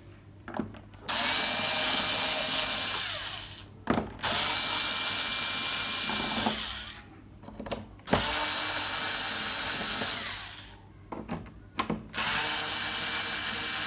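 Cordless power screwdriver backing out the Phillips screws of a TV's back cover: four runs of steady motor whine, each two to three seconds long and winding down, with small clicks between them.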